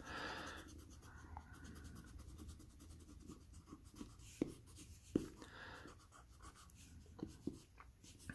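Pencil scratching over drawing paper in short strokes, faint, with a few light sharp ticks in the second half.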